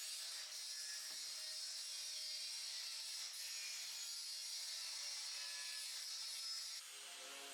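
Steady abrasive hiss of a tool sanding or grinding a steel bumper bar, which stops near the end.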